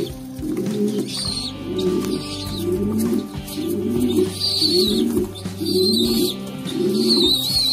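Pigeon squabs squealing in thin high peeps, typical begging calls while a parent pigeon feeds them, over a steady run of low pigeon coos repeating more than once a second, with some wing flapping.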